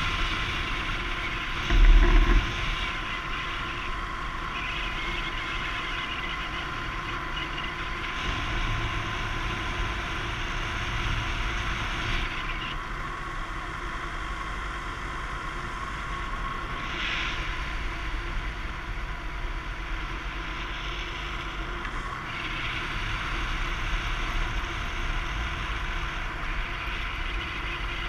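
Paramotor engine running steadily in flight, with wind rushing on the microphone. A brief loud thump about two seconds in.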